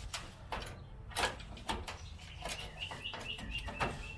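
Scattered clicks and knocks of hand tools working on metal, with a small bird chirping repeatedly, about three short calls a second, from about halfway through.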